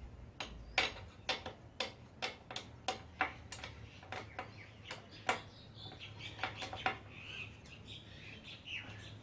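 Spanner clicking on a motorbike's chain-adjuster lock nut as it is tightened: sharp metallic clicks about two a second, then a few scattered ones.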